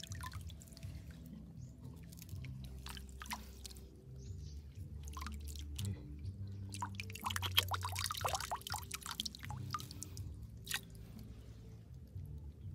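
Water splashing and dripping as hands scoop through shallow pond water, a scatter of small splashes that is busiest from about seven to nine and a half seconds in. Under it runs a soft background music bed of low held notes.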